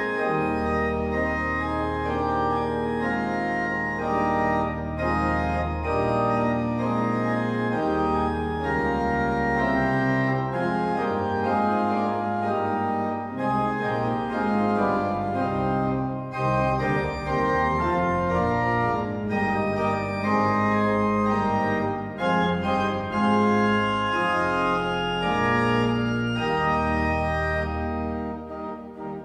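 Church organ played from a three-manual console: sustained full chords that change every second or so over a deep pedal bass.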